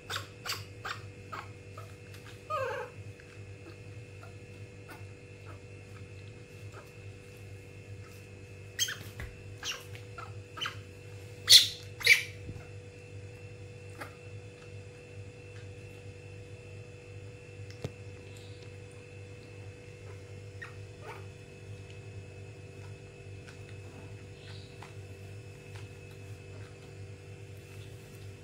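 A baby monkey gives a short squeaking call about two and a half seconds in. A few sharp knocks follow around the middle, over a steady faint hum.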